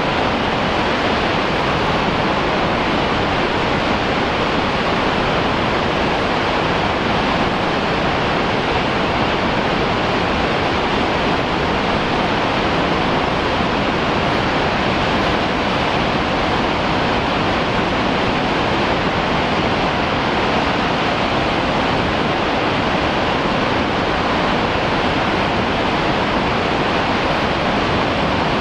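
Undine Falls, a tall tiered waterfall, pouring in a steady, unbroken rush of falling water.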